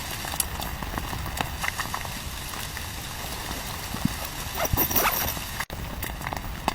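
Steady rain hiss with scattered irregular taps and knocks, typical of rain falling on a tent.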